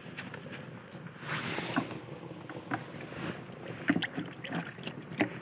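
Hands swishing and squeezing a bunch of green leaves in water in a plastic basin, the water sloshing and splashing unevenly, busiest about a second in.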